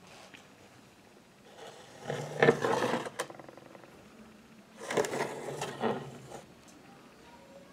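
Two bursts of rubbing and scraping handling noise, each about a second and a half long, as a hand handles the toy bull figurine.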